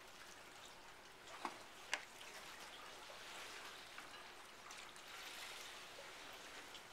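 Faint, steady outdoor hiss, with two sharp clicks about half a second apart around a second and a half in.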